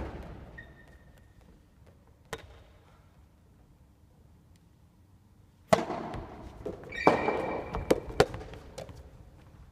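Soft tennis rally on a wooden gym floor: sharp, echoing pops of the rubber ball off rackets and the floor, one faint one a couple of seconds in, then a quick cluster from about six seconds in. Short squeaks of sneakers on the floor come in between.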